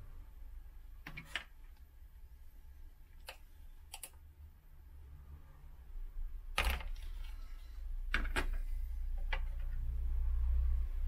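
A few scattered clicks and taps of a screwdriver and fingers prying a blue backup battery pack out of its plastic compartment in an IBM ThinkPad 755c laptop, the sharpest click about six and a half seconds in. A low rumble underneath grows louder near the end.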